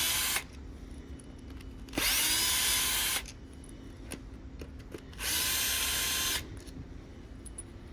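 Electric drill running in three short bursts of about a second each, spinning up at the start of each, as it backs out bolts.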